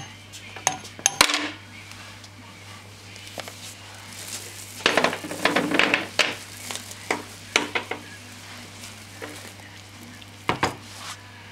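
Metal tools and Ducati 900SS engine parts clinking and clattering during hand disassembly: scattered sharp clinks, busiest from about five to six and a half seconds in, over a steady low hum.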